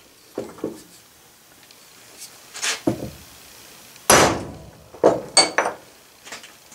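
Soft-faced hammer tapping an aluminium slab laid on a cast-iron chuck backing plate: a series of separate knocks, the strongest about four seconds in, driving the backing plate down onto transfer screws so their points mark the bolt-hole positions.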